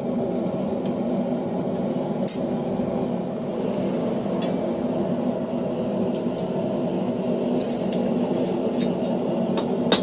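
Steel tools and workpiece clinking at the anvil over a steady background roar: one sharp metallic clink with a ringing tone about two seconds in, a few light ticks, then several sharper taps near the end.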